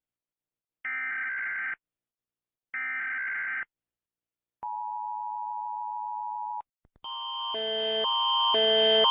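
Emergency Alert System SAME header: two harsh, buzzing digital data bursts about a second apart, each lasting about a second. Then a steady tone near 1 kHz for two seconds. From about seven seconds in, a loud alternating multi-tone alert sound starts, switching pitch roughly twice a second and growing louder.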